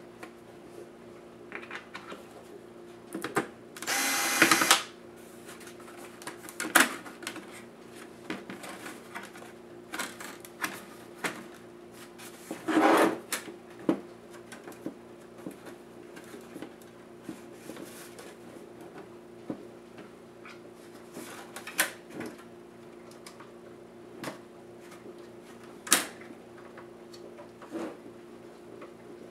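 Plastic parts of an ASUS EeePC 1015PEB netbook being pried apart and handled by hand: scattered clicks and knocks of clips and panels, with two louder scraping rasps about four and thirteen seconds in. A steady low hum runs underneath.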